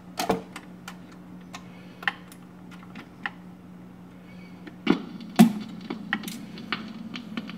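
A vintage Admiral automatic record changer cycling, with scattered clicks from the mechanism over a steady low hum. Two loud knocks come about five seconds in as the tonearm comes down on the LP. After them the stylus gives crackle and pops in the lead-in groove.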